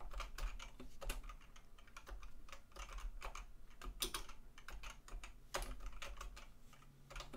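Typing on a computer keyboard: a steady run of irregular keystroke clicks, a few of them louder than the rest.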